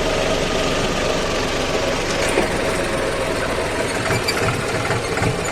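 Tractor engine running steadily up close, with a fast, even low pulsing.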